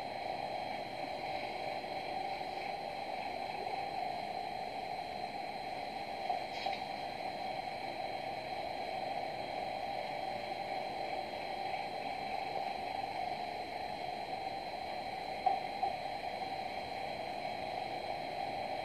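Steady background hiss and hum with a thin high whine, typical of a phone-and-lapel-microphone live stream left running. Faint clicks come about six seconds in and again around fifteen seconds in.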